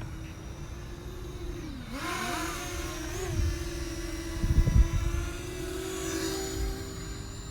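Parrot Anafi quadcopter's propellers whining in flight, the pitch dipping and then climbing as the drone brakes and turns, louder from about two seconds in as it comes close. A few low thumps a little after the middle.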